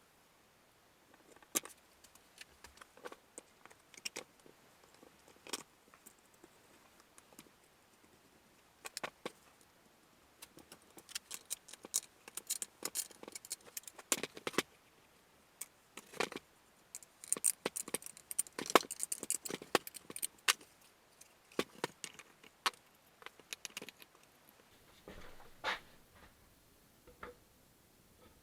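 Small hard parts being handled: scattered light clicks and clinks that thicken into a busy clatter in the middle, with one brief louder knock near the end.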